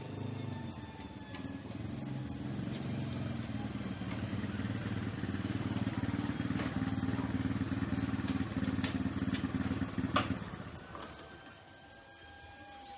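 A steady, low engine drone that stops about ten and a half seconds in. A few sharp clicks come near its end, the loudest just before it stops, and a faint high whine runs underneath.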